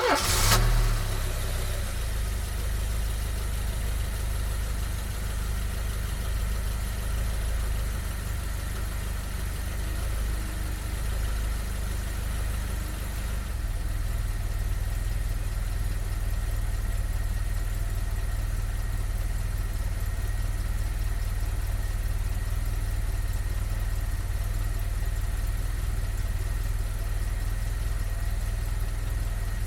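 Vauxhall Carlton car engine idling steadily, with a short louder burst right as the sound begins.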